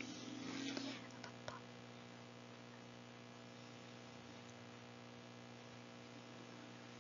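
Faint steady electrical hum with a few light clicks just after a second in; a soft breathy noise fades out in the first second.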